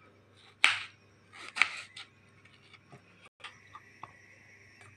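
Kitchen knife knocking down onto a plastic cutting board while slicing tomato: a few sharp taps, the two loudest about half a second and a second and a half in. Then only faint room tone with a thin steady tone.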